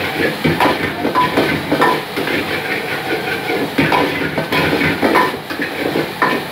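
Metal ladle scraping and clinking irregularly against a steel wok as food is stir-fried over a high gas flame, with a steady sizzling hiss underneath.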